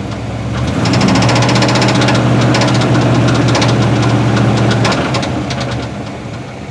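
1973 Chevrolet C10's 350 small-block V8 running with a rapid knocking rattle, which grows louder about a second in and eases off after about five seconds. The seller called it a bad rod bearing; the owner isn't sure what it is.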